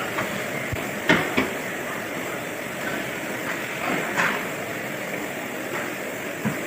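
A steady hiss with a few short knocks or taps: two close together about a second in, one near the middle and one near the end.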